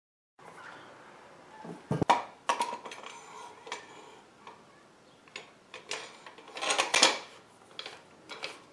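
Metal rod and nut of a clay extruder's ram clinking and knocking against its grey plastic tube sections as the parts are handled and slid together by hand. There are scattered knocks, a sharp one about two seconds in and the loudest cluster about seven seconds in.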